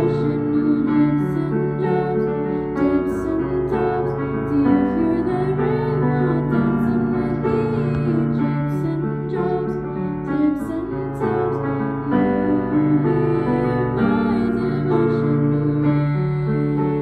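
Digital piano playing a slow, gentle piece of sustained chords and melody, with a girl's singing voice over it at times.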